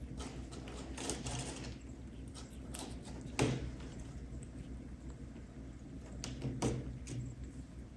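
Kittens playing: light rustles and small knocks come and go, with the loudest a single sharp knock about three and a half seconds in and another cluster near the end, over a steady low hum.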